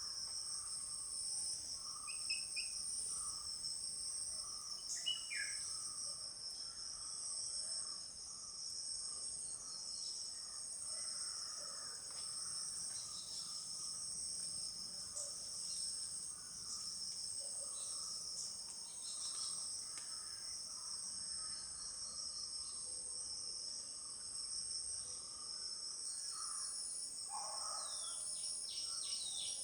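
A steady, high-pitched chorus of insects, pulsing rapidly, with scattered short bird calls under it and a cluster of falling bird calls near the end.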